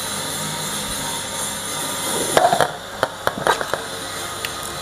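Steady mechanical drone of nearby construction machinery, with a cluster of sharp clicks and knocks between about two and a half and three and a half seconds in.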